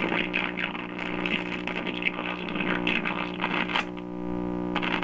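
Lafayette HA-63 communications receiver playing an AM broadcast station through its speaker, with static and a steady hum under the audio as it is tuned. The hum comes from failing electrolytic filter capacitors, and the set does not sound good.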